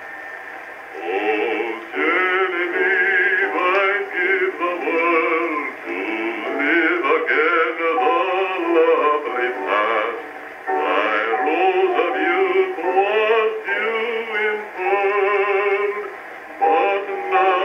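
Male vocal quartet singing in close harmony from an Edison electrically recorded disc played on an acoustic phonograph. The singing comes in about a second in after a quieter held chord. The sound is thin, with no deep bass and no high treble.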